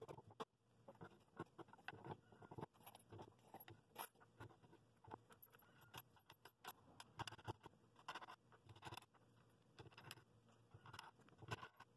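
Faint, irregular clicks and light taps of wooden spacer blocks and metal nuts being fitted onto the threaded rods of a bowl glue-up press, as the glued rings are clamped.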